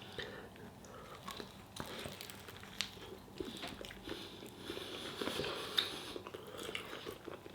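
A person chewing a mouthful of food close to the microphone, with faint, irregular little clicks and crunches.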